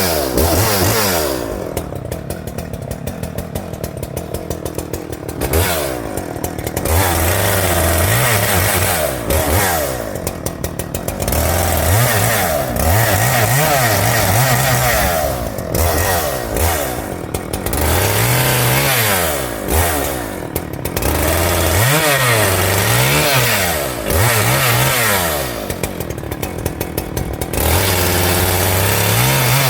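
Husqvarna 394XP 90cc two-stroke chainsaw revving up and down through a series of quick cuts in small wood, dropping back to idle for a few seconds several times between bursts of full throttle.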